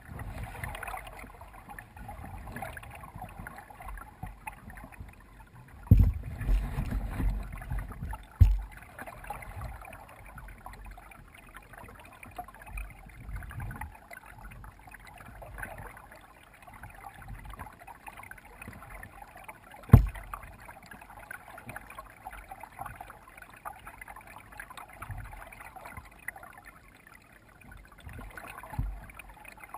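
Kayak paddling heard from a camera on the bow: steady splashing and trickling water from the paddle strokes, with a few sharp knocks, the loudest about twenty seconds in.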